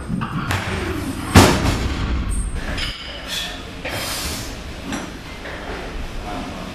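A heavily loaded barbell (185 kg) comes down onto wooden jerk blocks about a second and a half in: one loud crash with a short ringing after it. Quieter clanks and knocks of the bar and plates follow as the bar is handled on the blocks.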